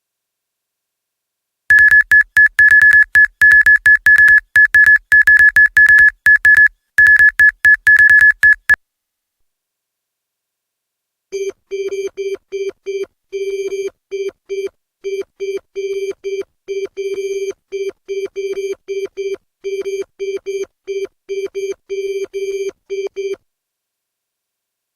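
Synthesized sci-fi computer typing interface sound effect: a rapid, irregular run of short high-pitched electronic beeps, one per keystroke, for about seven seconds. After a short pause comes a longer run of lower-pitched beeps in the same typing rhythm.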